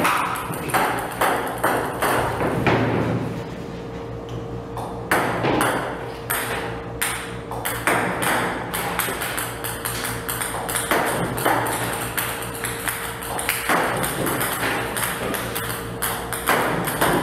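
Table tennis balls clicking sharply as they strike the table, fired one after another by a ball-throwing robot, with background music.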